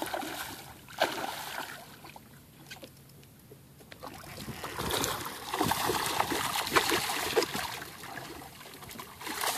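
A hooked redfish of about 30 inches thrashing and splashing at the surface of shallow water, in bursts: splashes at the start, a lull of a couple of seconds, then a longer run of splashing from about five seconds in.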